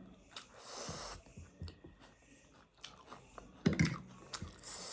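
A person chewing and eating food close to the microphone, with small mouth clicks, a short stretch of hiss near the start and a few louder knocks past the middle.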